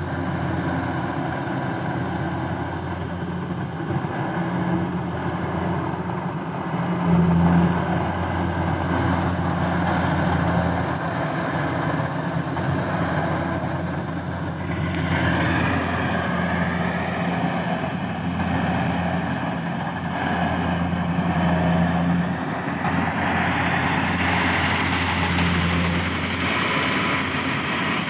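Kubota DC70 combine harvester's engine running steadily under load. The tone swells briefly about a quarter of the way in, and the sound turns brighter and hissier from about halfway through.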